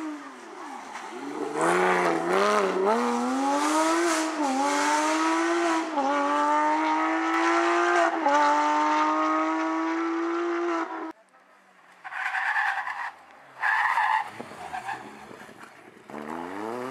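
Porsche 911 rally car's flat-six engine at full throttle, its pitch climbing through the gears with four quick dips at the upshifts as it pulls away. The sound cuts off suddenly about eleven seconds in; two short bursts of noise follow, and near the end another rally car's engine comes in, rising in pitch.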